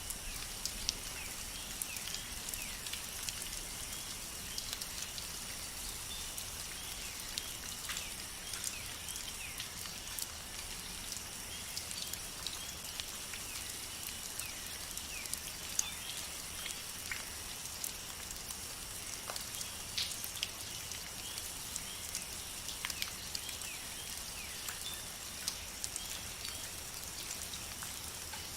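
Steady rainfall in a rainforest, with many separate drops ticking sharply over the even hiss. A constant high-pitched chorus of calls sits in the background.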